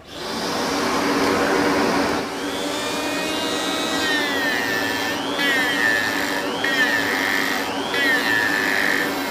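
A shop vacuum switches on and runs steadily, drawing air through a dust-collection boom arm. From about two seconds in, an electric die grinder whines over it, its pitch dipping and recovering again and again as the bit cuts into the bowl of a maple spoon.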